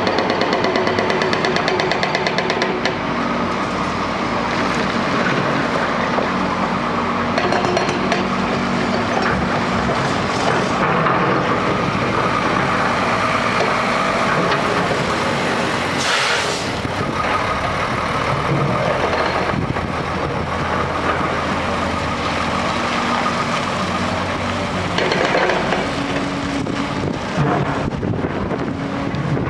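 A hydraulic breaker on a Hyundai tracked excavator hammers rapidly for the first few seconds. After that comes the steady running of the Hyundai excavators' diesel engines and hydraulics, the engine note shifting up and down as they work.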